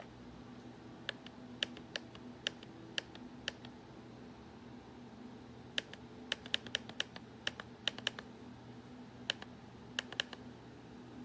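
Keys being typed on the QWERTY keyboard of a DYMO LabelManager 280 label maker: separate sharp clicks, first slow and spaced, then a quicker burst of keystrokes about halfway through, and a few more near the end.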